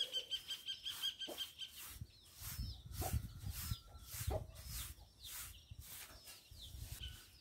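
A broom sweeping chicken droppings across the floor of a chicken coop in quick, repeated strokes.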